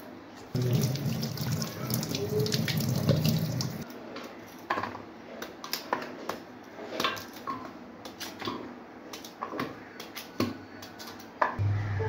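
Kitchen knife chopping peeled cassava root into chunks that drop onto a steel plate, a string of short, uneven clicks. For the first few seconds running water sounds over it.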